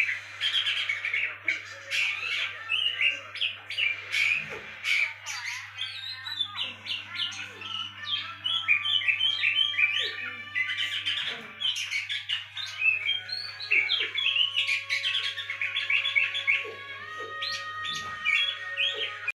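Oriental magpie-robin (kacer) song: a fast, continuous run of varied chirps and whistles over a steady low hum, played as a lure to set a silent kacer singing.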